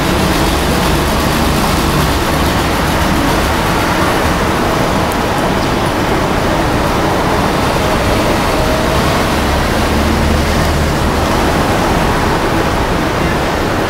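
Steady city street noise of road traffic: an even, continuous wash of sound with no single event standing out.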